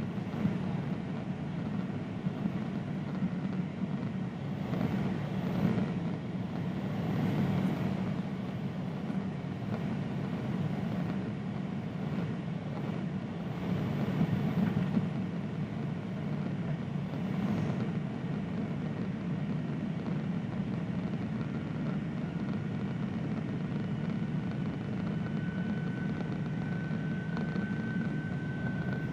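Steady in-flight cabin noise inside a Boeing 767-300ER: a low rushing drone from the jet engines and the airflow. A faint steady high whine comes in over it near the end.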